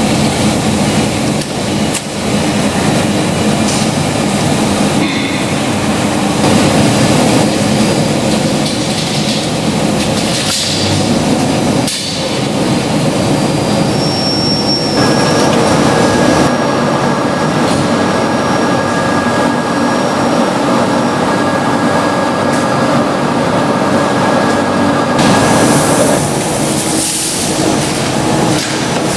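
Loud, continuous noise of food-processing machinery at a stomach-cooking tank, with a few sharp metallic knocks. A thin steady whine comes in about halfway and stops near the end.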